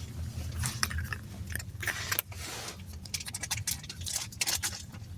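Irregular small clicks, crinkles and crackles of something being handled at close range, over a steady low hum.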